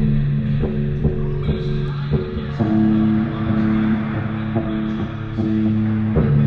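Guitar music: a riff of plucked notes, each starting sharply and ringing on, over sustained low notes.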